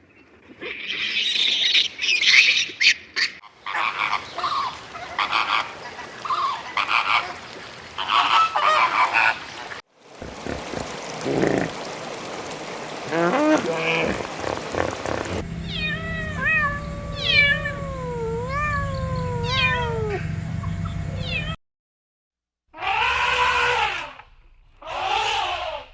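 A string of assorted farm animal calls from several short clips, broken by abrupt cuts. There are busy high-pitched cries first, then gliding pitched calls over a low hum, and two long pitched calls near the end.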